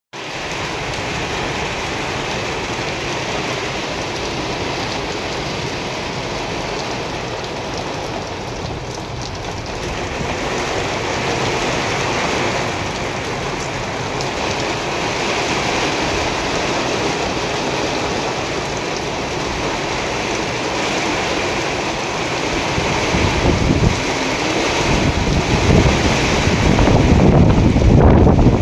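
Heavy rain falling steadily, an even hiss. From about 23 seconds in, gusts of wind buffet the microphone with low rumbling surges that grow louder toward the end.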